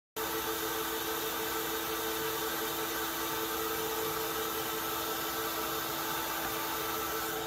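Router mounted in a router table running steadily: a constant motor whine over a rushing hiss, starting abruptly just after the beginning.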